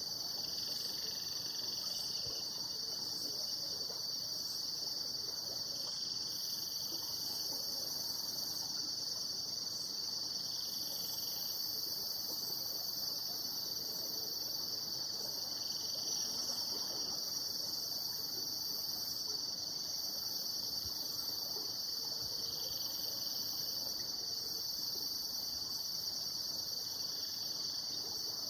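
Steady, high-pitched chorus of insects such as crickets, a continuous shrill drone that holds at an even level throughout.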